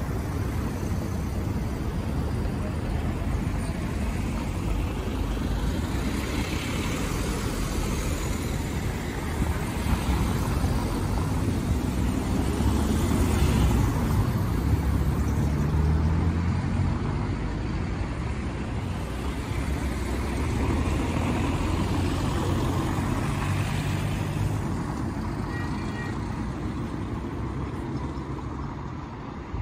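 Cars driving past close by one after another, engines running and tyres rolling, over a steady traffic rumble. Several passes swell and fade, the loudest about halfway through.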